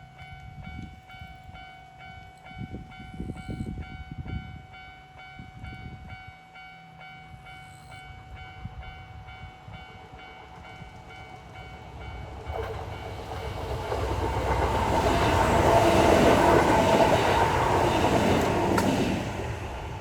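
Level-crossing warning bell ringing steadily. In the second half a Kintetsu 8600-series electric train approaches and passes the crossing. The rush of its wheels and running gear grows to a loud peak and falls away abruptly just before the end.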